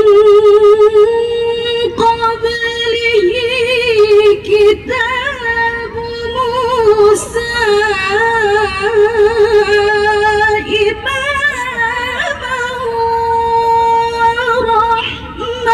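A woman's voice in melodic Quranic recitation (tilawah), through a microphone. It is one long phrase with wavering ornaments on high notes, barely broken, ending on a long held note near the end.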